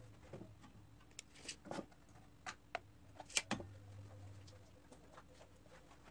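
A few light, scattered clicks and knocks, the loudest about three and a half seconds in, over a faint steady hum.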